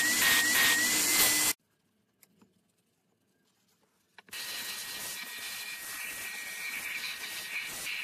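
Wet-dry vacuum running with a thin high whine and regular pulses as its extraction nozzle works a fabric car seat; it cuts off sharply about a second and a half in. After nearly three seconds of silence, a quieter, steady vacuum hiss with the same whine returns.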